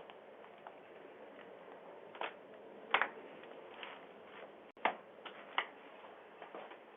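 A few sharp clicks or taps over the steady faint hiss of a doorbell camera's microphone. The loudest come about three seconds and about five seconds in.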